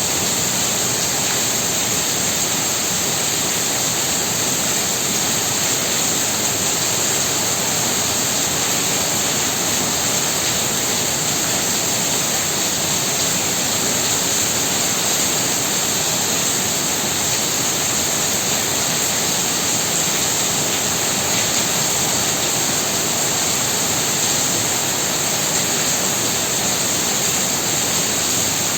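Heavy rain falling steadily in a continuous even hiss, with a bright band of high hiss on top.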